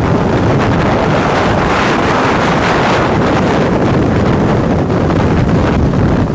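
Strong wind blowing hard across the microphone: a loud, steady rushing roar.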